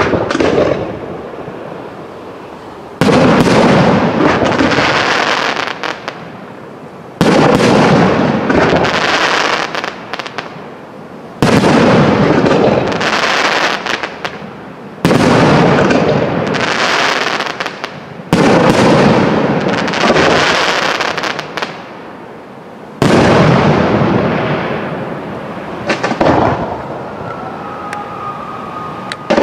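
Large aerial fireworks shells bursting in a steady sequence, one about every three to four seconds. Each burst is a loud bang followed by a fading crackle and rumble, and a thin whistling tone comes in near the end.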